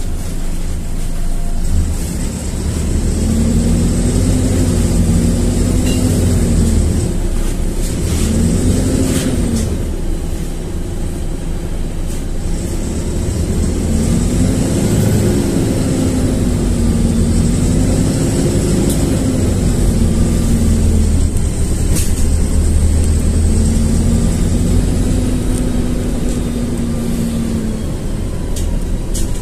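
LiAZ-4292.60 city bus driving, heard from inside the cabin: a steady low rumble under an engine and drivetrain tone that rises and falls in pitch several times as the bus speeds up and slows, with occasional short rattles.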